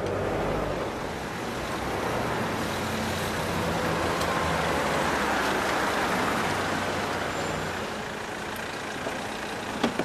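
A car driving past, its engine and tyre noise swelling to a peak about halfway through and then fading. A sharp click comes near the end.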